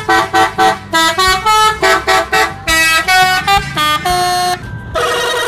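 Tour bus's multi-tone musical "telolet" horn playing a quick tune of short notes, then a held, wavering chord near the end, with the bus engine running underneath.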